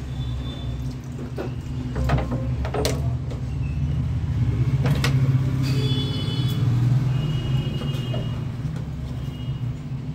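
A steady low rumble or hum, with a few sharp clicks and knocks over it and faint high chirps now and then.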